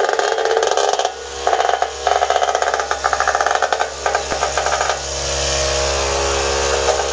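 Battery-powered vibrating concrete screed (Tornado E-Batt) running on its 24 V external electric vibrator motor. For about five seconds it makes a fast, uneven rattle, then settles into a steady hum.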